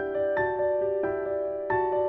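Background music: soft piano or electric piano notes struck one after another, each ringing on.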